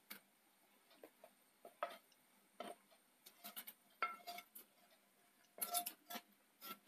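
Spoon scraping and tapping a steel plate while fried fish pieces slide off it into a clay pot of curry: faint, scattered light clinks, with a short metallic ring about four seconds in and again near six seconds.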